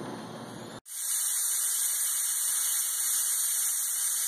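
Pressure canner with a 5-pound weighted regulator on, steam leaking past the weight with a soft wheezing hiss; the sign that the pot is pressurized and boiling. After a sudden break about a second in, a much louder, steady, high hiss of steam.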